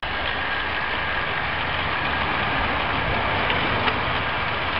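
Model 57XX pannier tank locomotive running along garden railway track: a steady whirr and rattle of its motor and wheels on the rails, with a faint steady whine.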